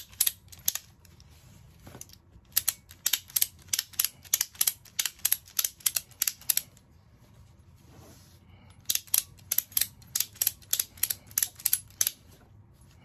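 Ratchet strap ratchet being cranked, its pawl clicking over the toothed spool in two long runs of quick, even clicks, about three or four a second, with a pause of about two seconds between. The ratchet is working fine.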